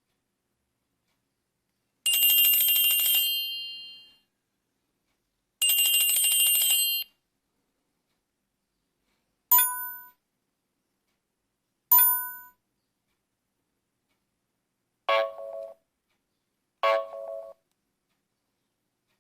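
Nokia 3250 mobile phone tones played one after another with silence between them. First come two bright, high tones of about a second and a half each, then two brief chimes, then two short, lower tones.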